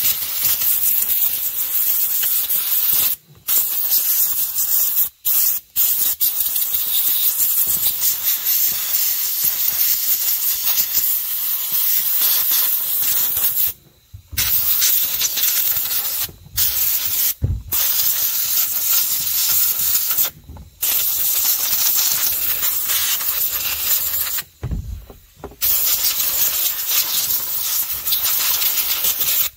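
Compressed-air blow gun hissing as it blasts dirt and sawdust out of a chainsaw's clutch and sprocket area, in long blasts broken by several short pauses.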